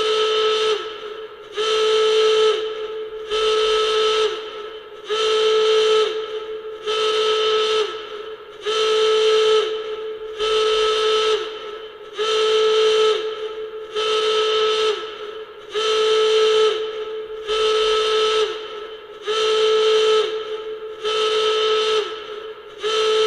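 Nuclear alarm sound effect: a horn-like blast at one steady pitch, repeating about every 1.8 seconds, each blast ending in a short drop in pitch before the next begins.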